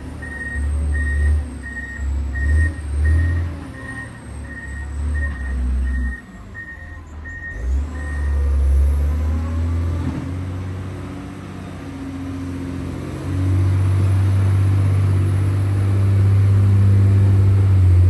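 Motor grader's diesel engine running, with its reversing alarm beeping about twice a second until it stops about halfway through. About two-thirds in the engine becomes louder and steadier.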